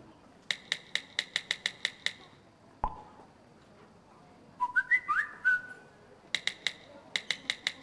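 Smartphone sound effects played through the sound system: a quick run of keyboard-typing clicks, a single thud near three seconds, a short cluster of rising chirping notification tones around five seconds, then another run of typing clicks.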